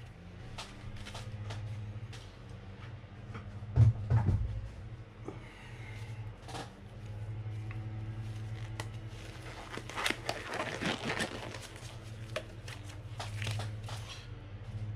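Room tone: a steady low hum, with scattered light clicks and knocks of handling. The loudest is a single knock about four seconds in, and a cluster of clicks comes around ten to eleven seconds.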